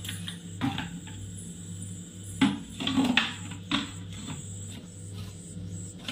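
A few light knocks and rubbing sounds of handling, clustered around two and a half to four seconds in, over a steady low electrical hum.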